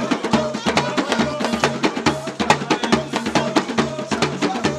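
Lively dance music with dense, fast hand percussion, a shekere gourd rattle among it, over a repeating bass line of short stepping notes.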